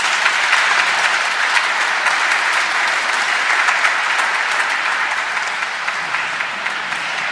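Congregation applauding: many hands clapping together in a steady, sustained round that eases slightly toward the end.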